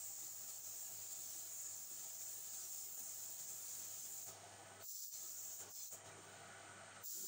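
Compressed air hissing steadily through a gravity-feed spray gun as it sprays filler primer, stopping about four seconds in; a short hiss comes again near the end.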